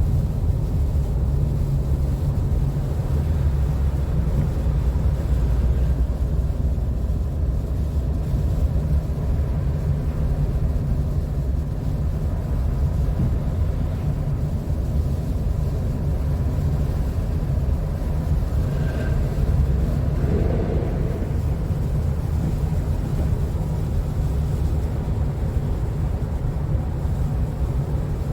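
Steady low rumble of a car driving, heard inside the cabin: tyre and engine noise on a snowy, slushy road.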